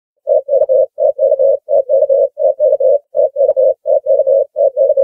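Ringneck dove cooing: short, low notes in quick groups of three, repeated over and over at an even pace.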